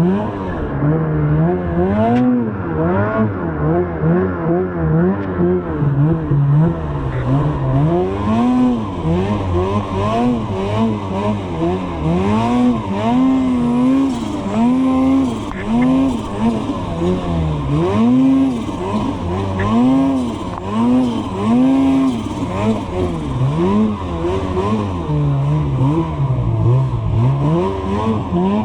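Two-stroke snowmobile engine revving up and falling back over and over, about once a second, as the sled is ridden hard.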